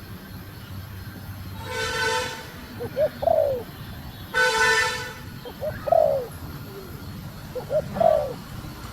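Female spotted dove cooing, a short bending coo phrase three times, spaced about two to three seconds apart. Two loud honks from a vehicle horn, each about half a second long, come about two seconds in and again about four and a half seconds in.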